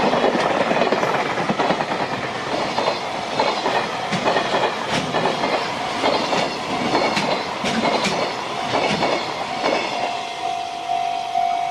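JR Freight container train passing close by, its wagon wheels clattering rhythmically over the rail joints. A steady, pulsing tone comes in near the end.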